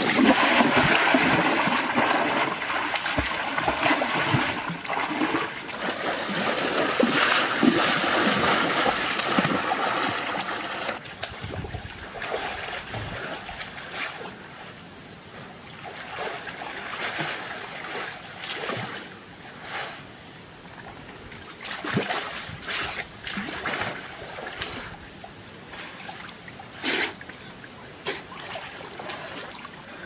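Water splashing and churning as a person wades and works his hands through a shallow river. It is loud and continuous for about the first ten seconds, then drops to quieter water with scattered single splashes and trickles.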